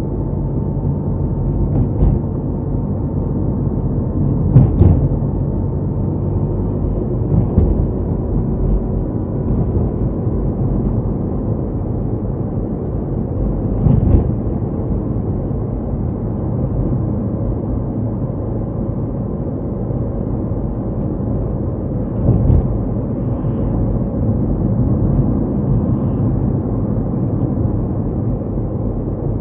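Car on the move: a steady low rumble of engine and tyres on the road, with a few brief thumps, the clearest about two, five, fourteen and twenty-two seconds in.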